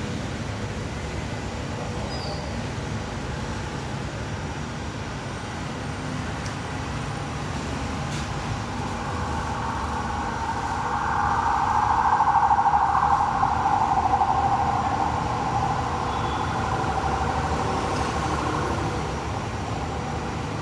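Steady low background rumble, with a humming sound that swells about ten seconds in, is loudest a few seconds later, and fades away.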